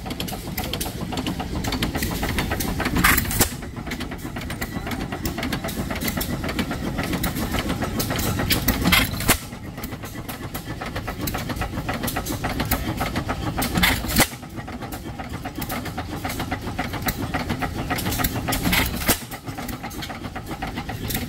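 Antique hit-and-miss gas engines running, including a Galloway 9 HP, a steady mechanical chuffing with a louder sharp burst about every five seconds.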